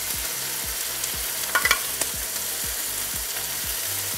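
Barbecue-sauce-coated boneless chicken thighs sizzling as they fry in smoking-hot olive oil in a cast iron skillet, a steady hiss. A short clatter of metal tongs about a second and a half in.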